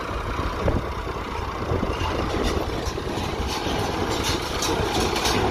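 Tractor engine running while it drives a Massey Ferguson 124 square baler, with the baler's quick mechanical clattering coming in about two seconds in, and wind buffeting the microphone.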